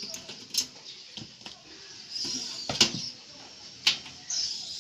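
Computer parts being handled while taking apart a desktop system unit: three sharp clicks and knocks of metal and plastic, with brief high scratchy sounds between them.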